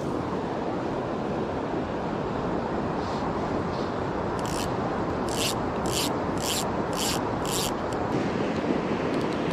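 Steady wind noise outdoors by the water. In the middle comes a run of about seven short rasping rubs, roughly two a second.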